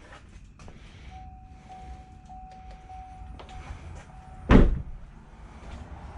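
A car door thuds shut about four and a half seconds in. Before it, the car's steady electronic warning chime sounds for about three seconds, with small clicks around it.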